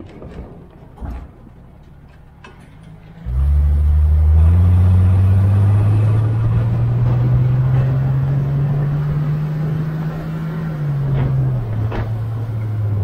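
Engine of a 1978 Chevy Nova pulling under throttle on a test drive, starting suddenly about three seconds in and rising steadily in pitch. It then drops in pitch near the end as the automatic transmission shifts up. A few short knocks come before the engine picks up and again near the end.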